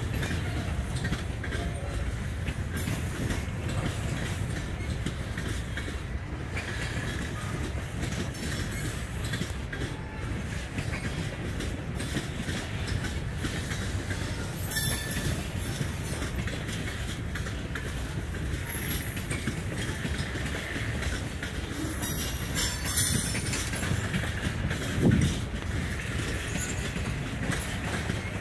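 Freight train cars rolling past at steady speed: a continuous rumble of steel wheels on rail, with a few brief high wheel squeals.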